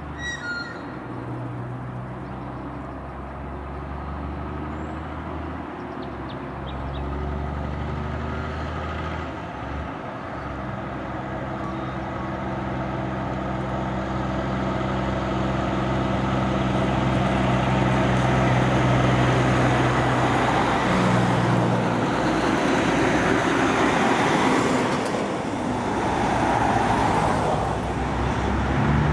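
Heavy diesel trucks driving past one after another, their engine notes rising and falling in steps. The sound grows louder as they come near, loudest about two-thirds of the way through.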